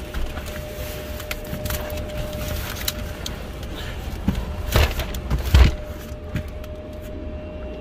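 Steady low rumble with a constant thin whine of warehouse machinery, scattered small clicks, and two loud knocks or scrapes close together about five seconds in.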